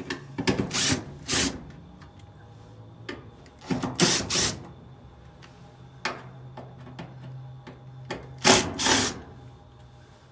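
Impact driver backing out quarter-inch hex screws from the dryer's sheet-metal panel, in three main short bursts with small clicks between.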